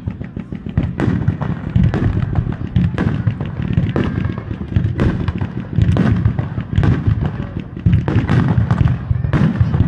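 Aerial firework shells bursting one after another, a sharp bang about once a second over a continuous low rumble, with dense crackling between the bangs.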